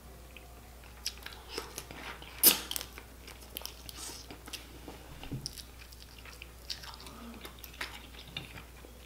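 A person chewing and biting crab meat close to the microphone, with wet mouth sounds and scattered sharp clicks and crackles, the loudest about two and a half seconds in.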